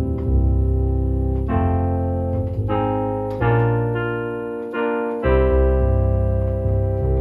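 Electronic organ playing held chords over a steady bass line, the chords changing every second or so.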